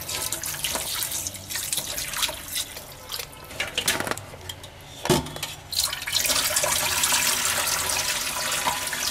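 Tap water running into a steel bowl of raw chicken pieces while a hand rubs and squeezes the meat, with splashing and sloshing as the chicken is rinsed. From about six seconds in the water runs louder and steadier, spilling over the bowl's rim.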